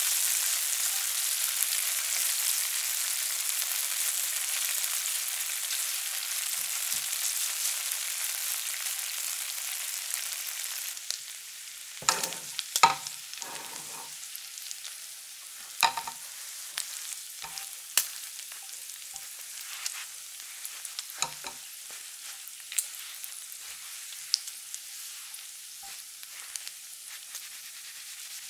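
Food sizzling in a frying pan, loud at first, then falling off sharply about eleven seconds in to a faint sizzle. After that come scattered clicks and knocks of a utensil against the pan.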